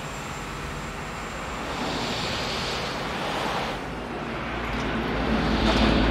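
A road vehicle approaching: a rushing engine-and-road noise that swells twice, with a deep rumble growing loudest near the end.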